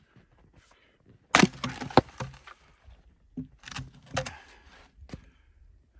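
An axe blow into a knotty log on a chopping block: a heavy strike about a second and a half in, then a sharp crack of wood, followed a couple of seconds later by smaller knocks and scrapes.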